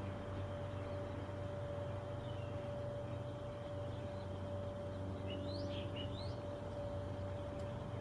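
Wild birds calling: a few short, high chirps, the clearest a pair of quick rising chirps about five to six seconds in, over a steady background hum.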